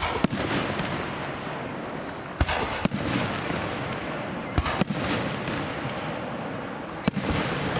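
Aerial fireworks bursting: sharp bangs about every two to two and a half seconds, several coming in quick pairs, over a steady noisy background.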